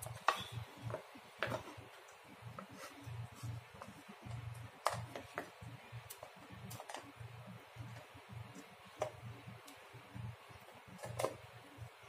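Hand screwdriver driving a screw through a plastic bottle cap into soft wood: irregular faint clicks and light knocks of the driver, screw and plastic, a few sharper ones scattered through.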